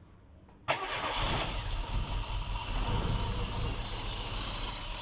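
Freshly rebuilt Opel car engine making its first start after the build, with corrected timing. It fires abruptly under a second in and keeps running steadily.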